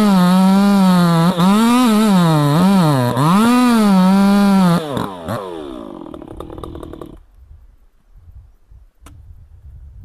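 Two-stroke chainsaw running at high revs, its pitch repeatedly dipping and rising. It falls away after about five seconds and is gone by about seven, leaving only faint background noise.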